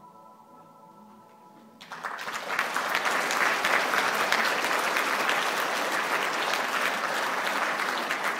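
Quiet music with a few held notes, then about two seconds in an audience breaks into applause, dense clapping that carries on steadily.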